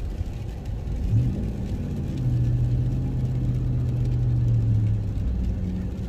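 Truck engine pulling under way, its note coming up about a second in and holding steady, over a low rumble from the drive on the snow and ice.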